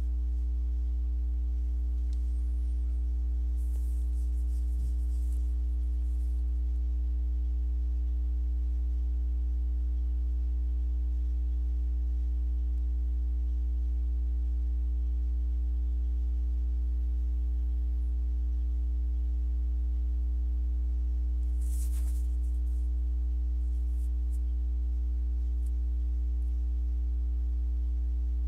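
Steady low electrical hum with a fainter higher buzz over it, unchanging throughout, with a single soft click about 22 seconds in.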